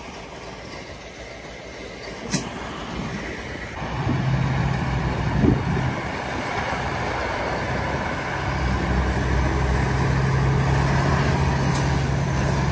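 Heavy diesel tractor engines running steadily under load while towing a stuck semi-truck, the drone getting louder about four seconds in and again past the middle. A single sharp click about two seconds in.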